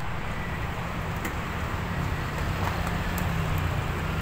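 Road traffic on a busy city street: a steady low engine rumble of passing and idling vehicles, with a few faint clicks.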